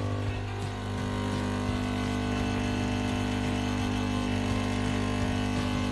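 Home espresso machine's pump running with a steady buzzing hum while pulling a shot of espresso.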